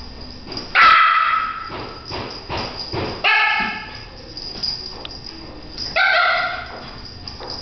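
A French poodle barking three times, about two and a half seconds apart, as it chases a flashlight spot.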